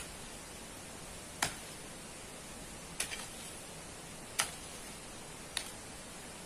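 A hand digging tool striking packed sand and gravel, five sharp clicks about a second and a half apart over a steady hiss.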